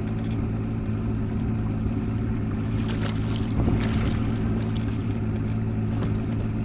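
Steady hum of a small boat motor, with a hooked pickerel splashing at the surface beside the boat about three to four seconds in.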